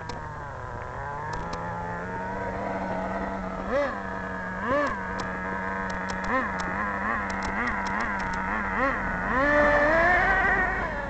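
RC truck's motor buzzing steadily, with about seven short throttle blips that briefly raise its pitch, then revving up and holding at a higher, louder pitch near the end.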